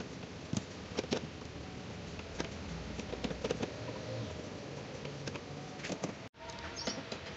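Scattered light clicks and small knocks of a bolt and nut being handled on a slotted steel mounting bracket of a plastic concealed cistern, then gripped with pliers, over a steady background hiss. The sound cuts out for an instant about six seconds in.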